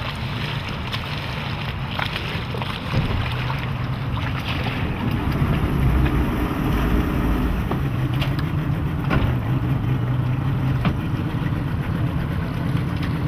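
Yamaha 150 HP V6 outboard engine running steadily as the boat moves slowly through the water, a low even hum with wind across the microphone.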